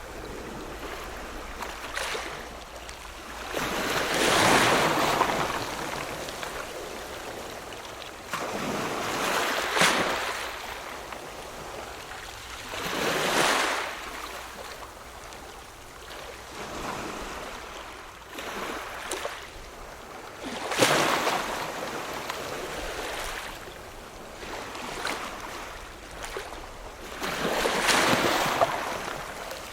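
Ocean waves breaking and washing in, a rushing hiss that swells and fades every few seconds, with five louder breakers among smaller ones.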